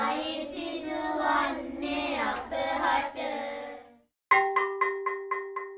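A high voice wailing without words in long, wavering tones for about four seconds, then breaking off. After a brief gap, music starts: quick struck mallet-percussion notes, about four a second, ringing over a held low note.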